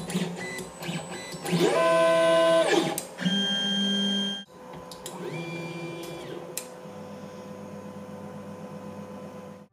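3D printer stepper motors moving the axes: a loud electronic whine of several pitched tones that glide up and back down as the motors speed up and slow down, the whine that comes from the stepper motor drivers. About four and a half seconds in it cuts to much quieter motor running, the steppers driven by TMC2209 drivers in StealthChop2 mode.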